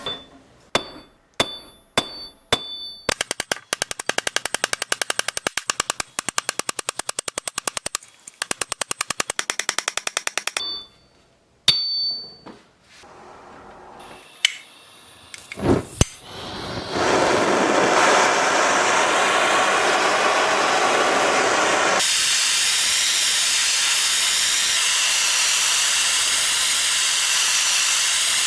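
Hammer blows on a sterling silver ingot over a steel block, each strike ringing with a clear metallic tone, then a rapid even run of lighter strikes for several seconds. From about two-thirds of the way in, a steady loud rushing noise takes over and changes tone partway through.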